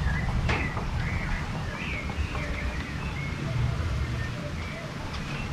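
Birds chirping and calling, with short high chirps scattered throughout and a few lower, cooing notes near the end. A steady low rumble runs underneath, and there is one sharp click about half a second in.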